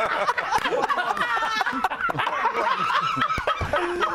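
Several men laughing at once, their chuckles overlapping.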